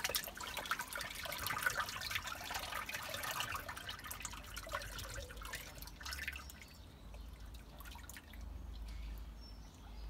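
Dirty water trickling, dripping and bubbling in a drain inspection chamber flooded by a blocked drain. It is a dense crackle of small splashes that thins out after about six seconds, and a low rumble comes in near the end.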